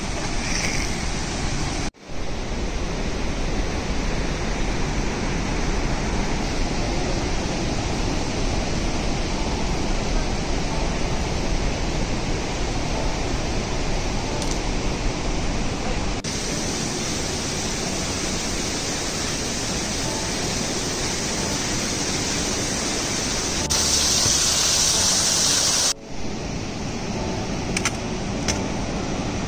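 Steady rushing of a fast mountain river. It cuts out briefly about two seconds in and again near the end, and grows louder and hissier for a couple of seconds shortly before the second break.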